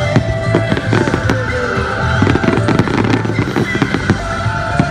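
Fireworks display with many sharp pops and crackles from low gold fountain and comet effects, over loud music with steady sustained tones.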